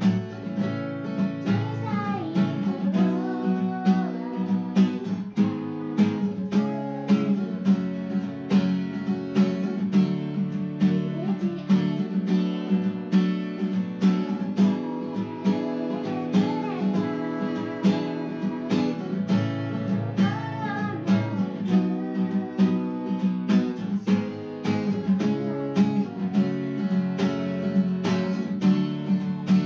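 Acoustic guitar music, strummed and picked in a steady rhythm.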